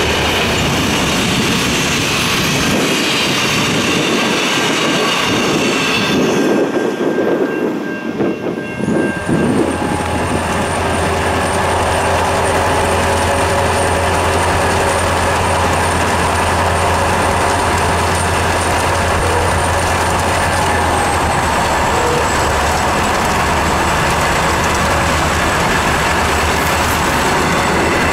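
Ex-Spirit of Progress passenger carriages of a diesel-hauled heritage train rumbling past trackside, wheels clicking over the rail joints. After a break about eight seconds in, a steady low road drone heard from inside a car running alongside the train's diesel locomotives.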